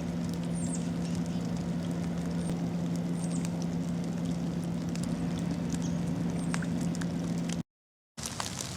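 Rain pattering, with a steady low hum underneath and a few short high chirps. About three-quarters of the way through the sound cuts out for half a second, then the rain patter goes on without the hum.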